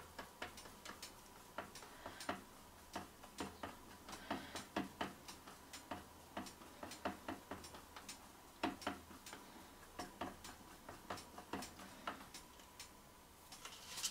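Faint, irregular small ticks and clicks, a few each second.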